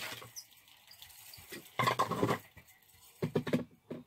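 Fishing reel being cranked by hand, winding new line onto the spool, heard as three short bursts of reel noise: at the start, about two seconds in, and just after three seconds.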